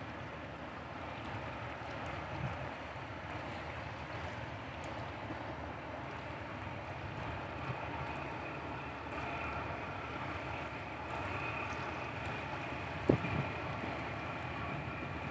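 Wind buffeting the microphone over a steady outdoor wash. A faint steady whine comes in past the middle, and there is a single low bump near the end.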